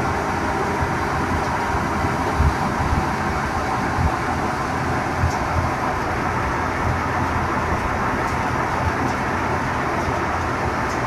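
Belt-driven patoz threshing machine running steadily under load as crop is forked into it: a continuous mechanical din with small low knocks.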